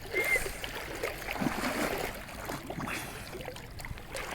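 Stream water flowing steadily, with scattered small splashes and knocks.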